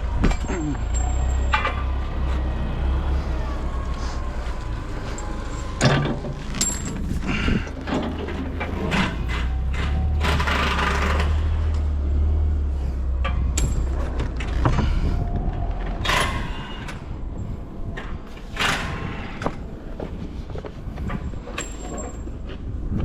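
Heavy diesel engine idling with a steady low rumble, with scattered metallic knocks and several short hissing bursts of air.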